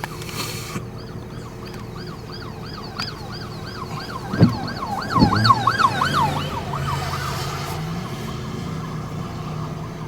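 Emergency vehicle siren in a fast yelp, its pitch sweeping up and down about three to four times a second for several seconds before fading out. Two sharp knocks come in the middle, and a vehicle engine hums steadily underneath.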